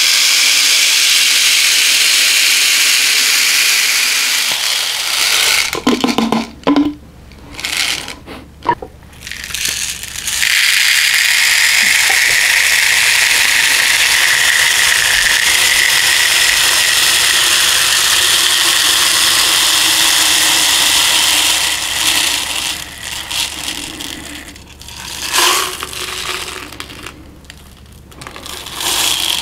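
Copper-coated steel BBs pouring in a steady rattling stream from a plastic bottle into a 3D-printed plastic weight shell. The flow breaks off twice, about five seconds in and again near the end, leaving scattered clinks and rattles of a few balls.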